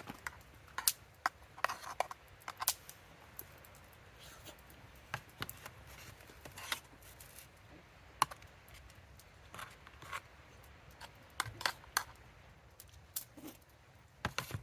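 Irregular small clicks and knocks, about fifteen of them scattered through, with clusters near the start and near the end, like small objects being handled.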